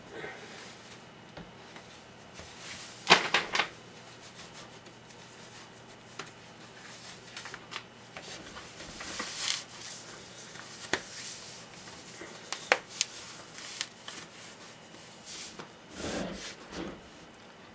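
A cotton sock being pulled on over the leg and shin guard sleeve: intermittent fabric rustling and rubbing, with a short cluster of sharp knocks about three seconds in.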